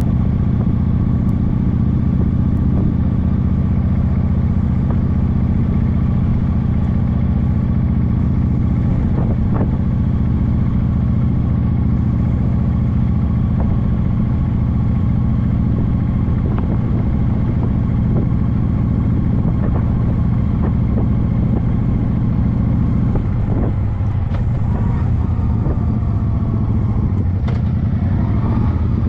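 Motorcycle engine running at a steady cruising speed, a loud, even drone that holds one pitch. The sound eases slightly about three quarters of the way through, and its pitch shifts near the end.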